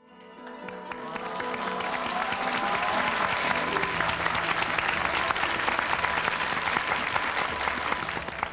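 Applause, fading in over the first couple of seconds and then holding steady, with sustained musical tones faintly underneath.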